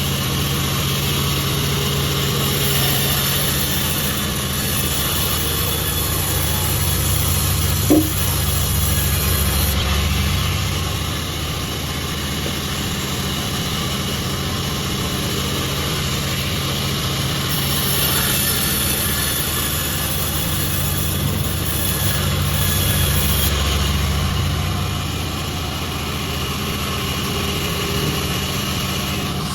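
Pandan36 sawmill machinery running with a steady mechanical hum while jackfruit wood is sawn. The hiss grows louder for a few seconds twice. A single short, sharp knock comes about eight seconds in.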